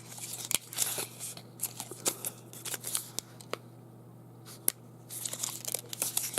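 Plastic and cardboard packaging of replacement electric-toothbrush heads being handled, rustling in short bursts with a few sharp clicks.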